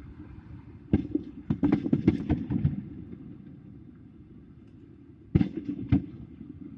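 A quick, irregular run of sharp pops or cracks lasting about two seconds, then three more near the end, over a low, steady city rumble.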